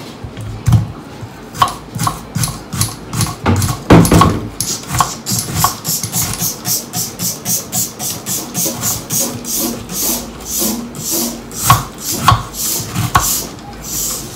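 Kitchen knife cutting an onion on a cutting board: a few heavier knocks of the blade on the board in the first seconds, the loudest about four seconds in, then a steady run of quick slicing strokes, about three a second.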